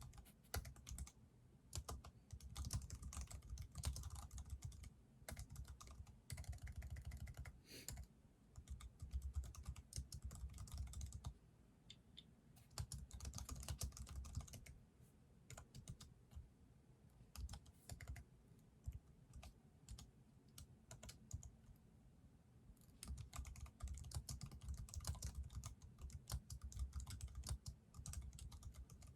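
Typing on a computer keyboard: runs of rapid key clicks with short pauses between them, sparser through the middle stretch.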